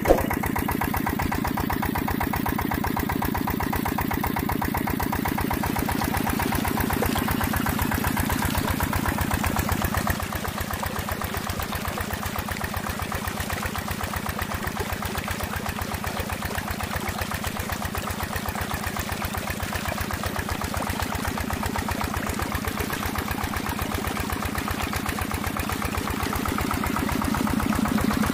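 Small diesel pump engine running steadily with a rapid, even chug; it gets a little quieter about ten seconds in.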